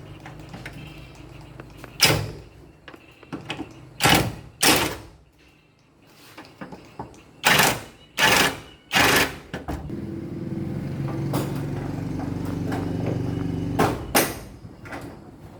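Repair work: about seven short, loud scraping or knocking strokes, spaced irregularly, and a small motor running steadily for about four seconds near the end.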